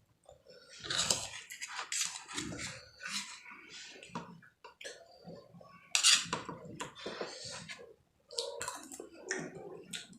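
Close-up chewing and mouth sounds of a person eating, in irregular bursts with small clicks and smacks; the loudest burst comes about six seconds in.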